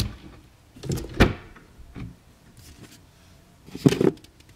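Plastic supplement tubs being handled and set down on a kitchen counter: several short knocks and thuds, the loudest about a second in and near the end.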